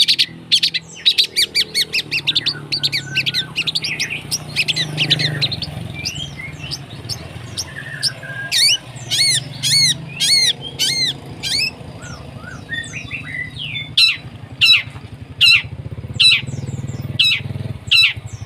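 Long-tailed shrike singing harsh, rough song material. Rapid chattering runs of high notes give way to loud, swooping repeated calls about every two-thirds of a second.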